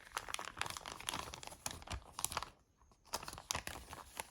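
Plastic packaging crinkling and rustling in hand as the packaging around a replacement phone mainboard is opened, in two spells with a short pause about two and a half seconds in.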